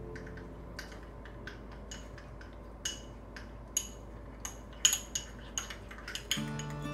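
Metal cutlery clinking and tapping against dishes: a quick run of light, ringing clinks, the loudest about five seconds in.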